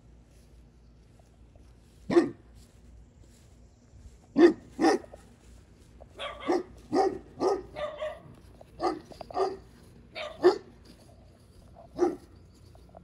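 A large dog barking, about a dozen short, sharp barks at an uneven pace, starting about two seconds in and clustering in the middle.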